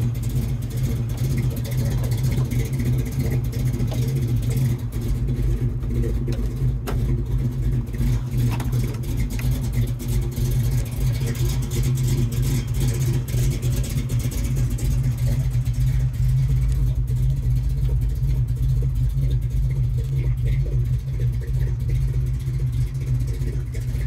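Chevrolet 454 big-block V8 idling steadily with a lumpy cam, running through long-tube headers and dual Flowmaster exhaust.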